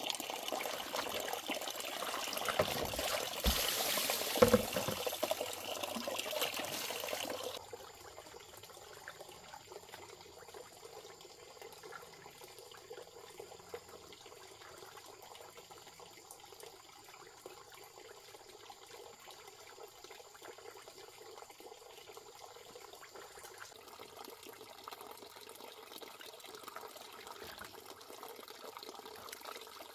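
Running water, loud for the first seven or so seconds with two knocks about four seconds in, then much fainter for the rest.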